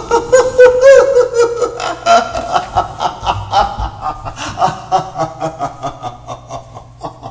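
A man's voice laughing as a cartoon demon: a long villain's laugh of quick pulses, about three a second, loudest at first and slowly dying away.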